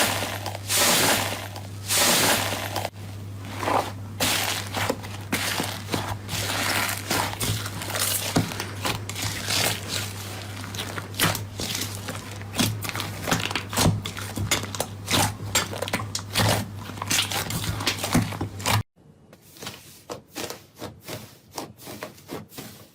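Slime being squeezed and poked by hand, giving a dense run of crackling pops and clicks over a steady low hum. About nineteen seconds in it cuts to quieter, sparser crackles.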